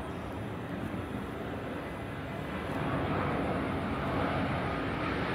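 Airbus A350-900 on final approach, its Rolls-Royce Trent XWB jet engines making a steady rumble and hiss that grows louder about halfway through as the aircraft comes closer.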